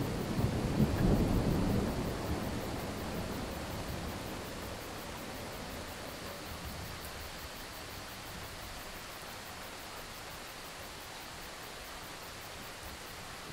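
A roll of thunder rumbling and dying away over the first few seconds, then steady rain.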